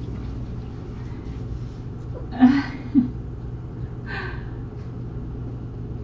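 Two brief soft vocal sounds from a woman, a little over two seconds and three seconds in, then a short breathy noise about four seconds in, over a steady low electrical hum.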